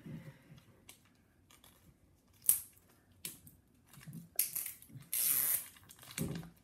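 Plastic wrapping and capsule of L.O.L. Surprise toys being unwrapped by hand: a sharp click about two and a half seconds in, then crinkling and rustling of the plastic wrapper near the end.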